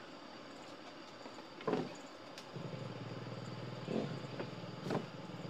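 Small circuit board set down on a table with a sharp knock, then a steady low hum sets in about halfway through, with a couple of light clicks.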